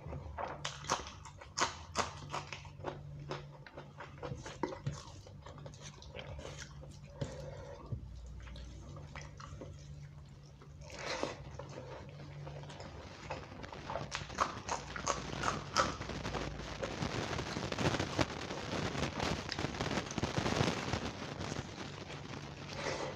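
Close-miked wet chewing, lip smacks and mouth clicks of a person eating soft bhuna khichuri rice and chicken curry by hand. About two-thirds of the way in the sounds grow denser and louder.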